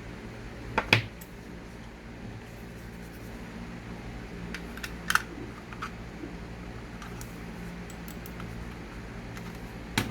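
Logitech MK220 wireless keyboard-and-mouse combo being tried out: a few scattered, separate clicks of keys and buttons rather than continuous typing, over a steady low hum.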